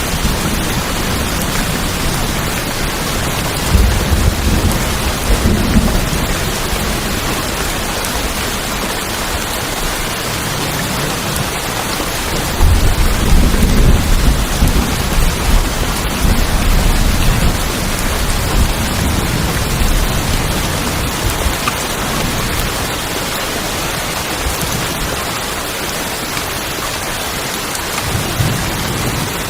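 Steady heavy rain drumming on a tin roof, with low rolls of thunder: one a few seconds in and a longer, louder one about twelve seconds in that rumbles on for several seconds.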